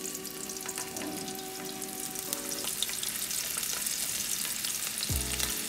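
Small masala-coated anchovies frying in hot vegetable oil in a pan: a steady sizzle full of fine crackling pops.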